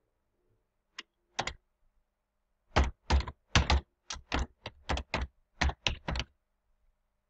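Typing on a computer keyboard: a couple of clicks in the first second and a half, then a run of about a dozen firm keystrokes, as a name is typed in.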